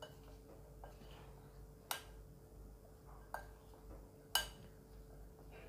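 Hands mixing chopped bottle gourd with gram flour and spices in a glass bowl: faint, with a few sharp clicks against the glass, the loudest about four seconds in, over a faint steady hum.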